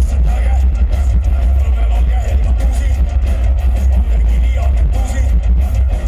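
A metal band playing live on an outdoor festival stage, heard from the crowd: loud, continuous music with electric guitars and a heavy, dominant bass.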